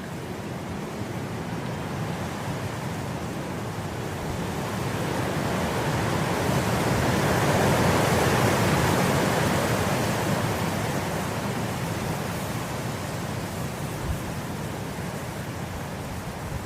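Wind blowing through grass: a gust rises steadily to its strongest about halfway through, then slowly dies back down.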